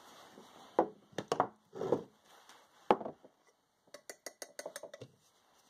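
Hard plastic PVC pipe fittings knocking and clattering on a wooden workbench as they are picked up and set down, with one sharper click about three seconds in. Near the end comes a quick run of small clicks and scrapes as the metal cap of a can of PVC cement is unscrewed.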